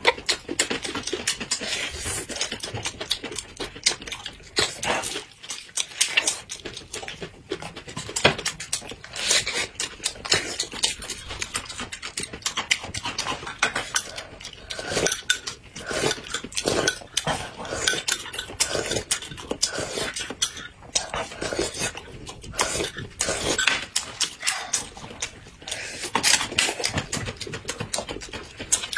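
Close-up eating sounds: crunchy bites into a raw green bell pepper stuffed with meat, with wet chewing and light clicks of chopsticks.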